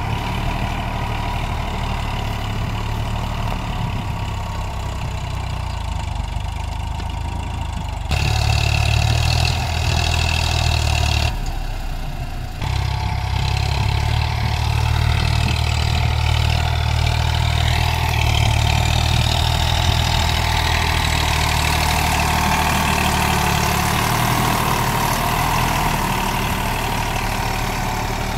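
Eicher 548 tractor's three-cylinder air-cooled diesel engine running steadily while pulling a disc plough. The sound jumps abruptly louder about eight seconds in, and drops out briefly and returns around twelve seconds.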